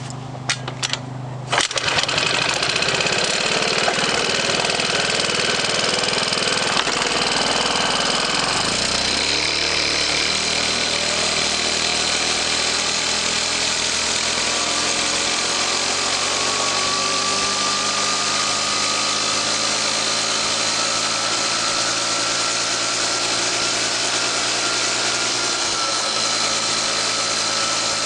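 Yamaha Choinori 50cc scooter's small four-stroke single running, with a nasal note like an amusement-park go-kart. A few sharp clicks in the first second or two, then the engine gets louder and settles into a steady run, with a whine that slowly rises in pitch from about ten seconds in as the scooter picks up speed.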